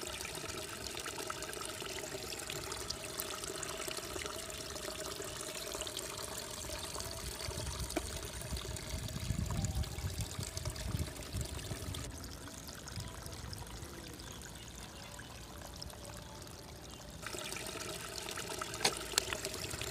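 Steady trickle of running water, softer for a few seconds past the middle.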